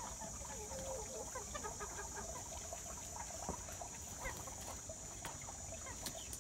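Chickens clucking in short scattered notes as they forage, over a steady high-pitched hiss. There is a brief flurry of wing flaps near the end.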